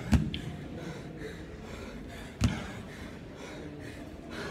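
Two dull thuds, about two and a half seconds apart, as a dumbbell touches down on the rubber gym floor at the bottom of each single-arm dumbbell snatch. Hard, heavy breathing runs between them.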